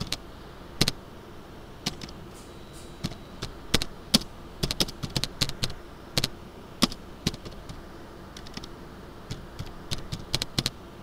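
Typing on a computer keyboard: irregular keystrokes in short runs, with pauses between them.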